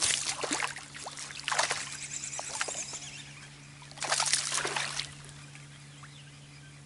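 Hooked bass thrashing and splashing at the water's surface beside the boat: three bursts of splashing, the first at the start, the next about a second and a half later and the last about four seconds in.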